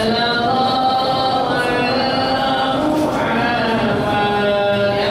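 A man chanting in long, drawn-out melodic notes that step up and down in pitch: Islamic devotional chanting of a supplication.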